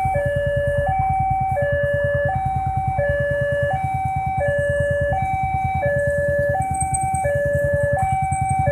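Railway level-crossing warning alarm sounding its two-tone call, a higher and a lower tone alternating about every 0.7 s, while the crossing is closed for an approaching train. A low, rapid pulsing runs underneath.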